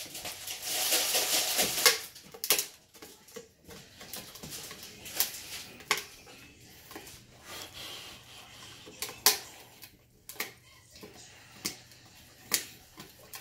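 Dog gnawing a dried beef trachea chew, with irregular crunches and sharp cracks as its teeth bite into the hard ridged rings. The crunching is loudest in the first two seconds.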